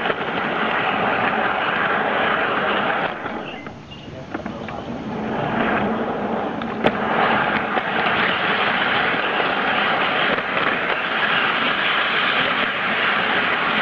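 Steady rolling rumble and clatter of a garden-scale model train running over its track, heard from a camera riding on the train. The noise drops away briefly about four seconds in, and there is one sharp click about seven seconds in.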